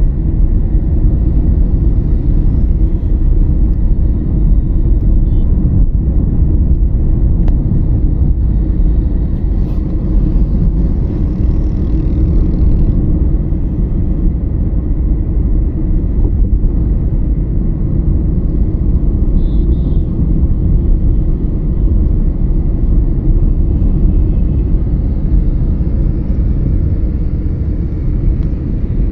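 Steady low rumble of road traffic, with vehicle engines and road noise heard from a vehicle moving through city traffic.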